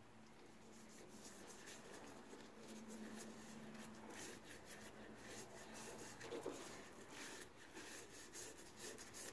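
Faint rubbing of a disposable-gloved hand working wet water-based finish onto a turned wooden handle, in short irregular strokes.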